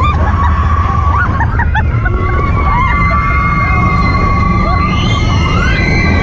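Riding the Big Thunder Mountain Railroad mine-train roller coaster: heavy wind rush and train rumble on the microphone, with a long, steady high squeal that glides up in pitch near the end. Short whoops and screams from riders come about one to two seconds in.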